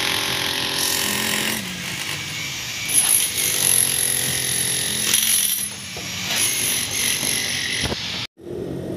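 A power tool running continuously, a loud noisy sound with a high-pitched whine that swells twice.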